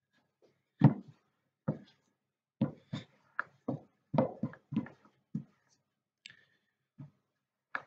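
Wooden rolling pin working pastry on a worktop: about a dozen short, soft thuds and knocks at irregular intervals, the first the loudest.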